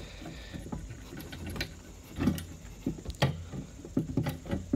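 Knocks and rattles of a sprayer's metal handle tubes being worked into the sockets of its plastic tank frame, about five short strikes, the loudest about two and three seconds in, over a steady low hum.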